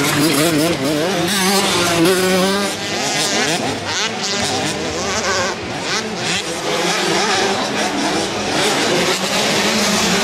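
Motocross dirt bike engines revving, the pitch rising and falling quickly as the throttle is worked, loud and continuous.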